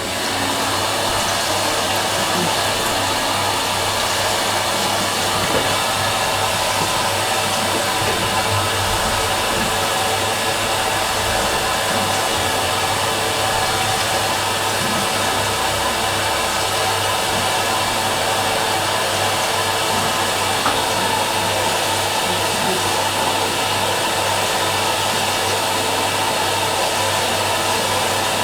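Fisher & Paykel MW512 washing machine running with a steady, even whirring hum.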